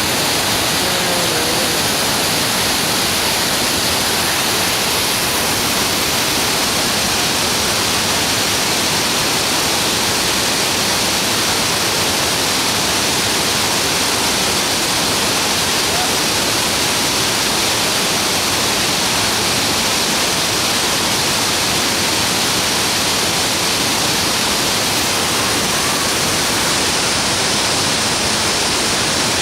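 Waterfall's falling water: a steady, deafening rush of noise that does not let up.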